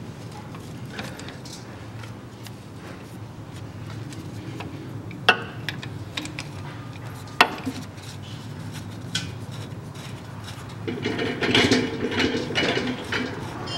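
Socket wrench working the fill plug on a rear axle differential: two sharp metallic clicks a couple of seconds apart, then a short spell of clattering and scraping near the end as the plug is worked loose.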